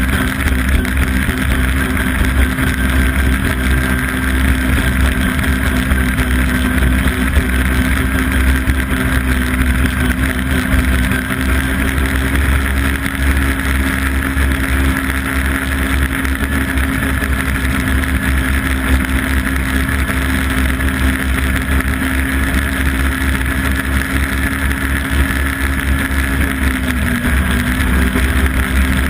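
Yamaha Apex snowmobile's four-stroke four-cylinder engine running steadily at cruising speed, with the rush of track and wind underneath. The engine note dips briefly near the end.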